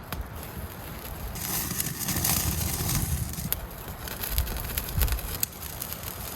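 Wood cooking fire crackling with scattered sharp pops, and a louder stretch of hissing about a second and a half in.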